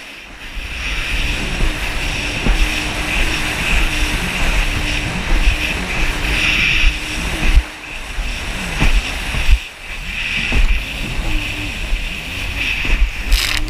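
Yamaha jet ski engine running under way, its pitch rising and falling with the throttle. The sound drops away briefly twice in the middle. Wind buffets the camera and water rushes against the hull.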